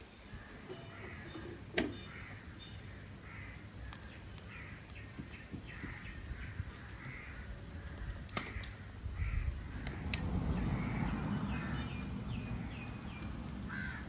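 Crows cawing over and over, with a few sharp knocks and a low rumbling noise from about halfway through.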